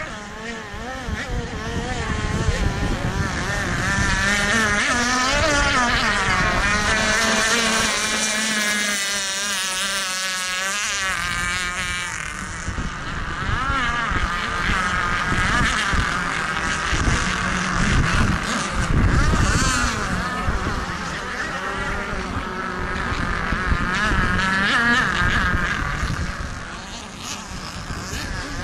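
Engines of several radio-controlled model racing boats whining at high pitch. The pitch rises and falls as the boats speed past and turn, and the engines overlap one another.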